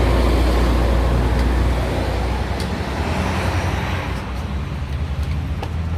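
A motor vehicle's engine running close by with a deep, steady hum. It starts suddenly, is loudest for about the first two seconds, then settles a little lower.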